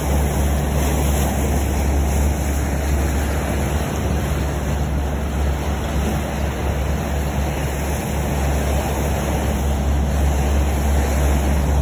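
A boat's engine running steadily, a low hum under the hiss of water rushing past the hull and wind.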